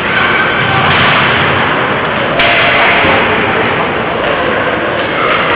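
Ice hockey game sound in an arena: a loud, even wash of rink and crowd noise that grows louder about two and a half seconds in.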